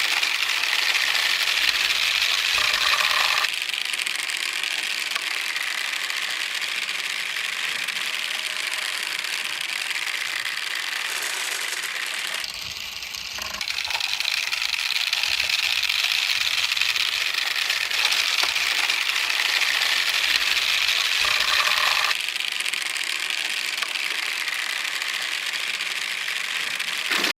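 Many marbles rolling and rattling along marble run tracks, a continuous clattering rumble that changes character abruptly a few times as the track changes.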